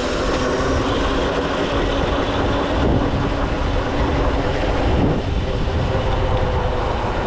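Wind rushing over the microphone while riding at speed, a steady loud buffeting with a faint even hum underneath.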